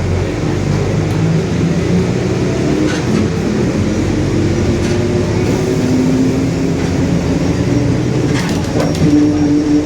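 Mercedes-Benz OF-1721 Bluetec 5 bus driving under way, its drivetrain giving a steady drone with a whining tone that climbs slowly in pitch as it picks up speed: the droning differential.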